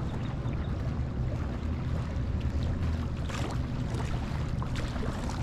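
Wind rumbling steadily on the microphone, with a few faint clicks and rustles from the fish and rag being handled near the end.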